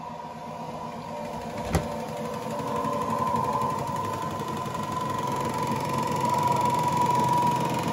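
Colormaq and Arno top-loading washing machines coasting down in their spin cycle after being switched off, their spinning baskets making a steady whir with a clear whining tone that grows a little louder. A single knock about two seconds in.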